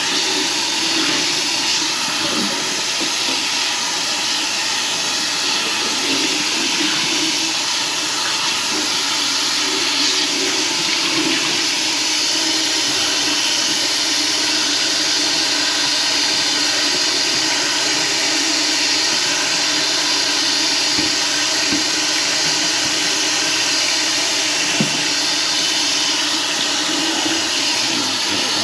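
Running water rushing steadily with a hiss.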